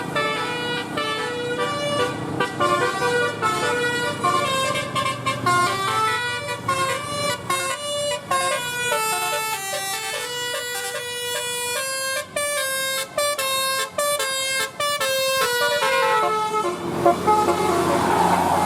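Bus 'telolet' multi-tone air horn playing a melody: a series of held notes stepping up and down in pitch, with short breaks between phrases. It stops about a second before the end, leaving a noisy rush.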